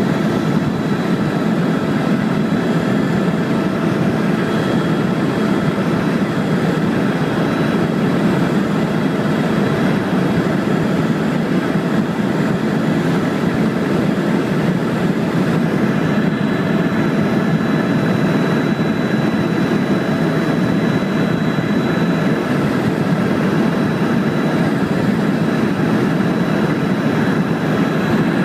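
Helicopter engine and rotor running steadily in flight: an even, loud drone with faint steady whining tones above it.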